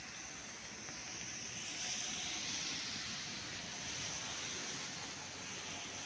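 Steady hiss of heavy rain falling, swelling a little about two seconds in.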